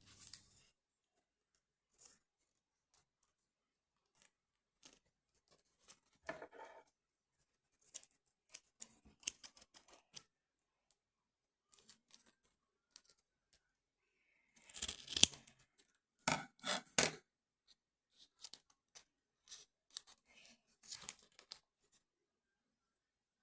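Scattered short clicks and crinkling, tearing-like rustles of something being handled at close range, coming in irregular bursts with the loudest clusters about 15 and 17 seconds in.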